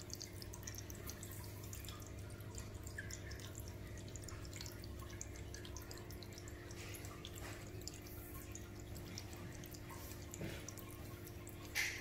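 Thin stream of water trickling from a straw onto a small spinning popsicle-stick water wheel and dripping and spattering into a shallow tray of water, many small drips in quick succession.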